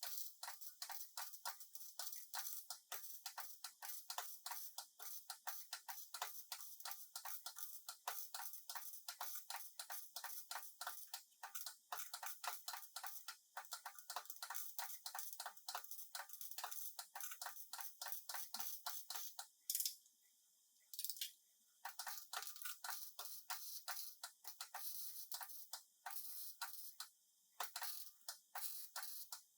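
Rapid run of short, sharp clicks or taps, several a second. It stops for a couple of seconds about two-thirds through, then starts again.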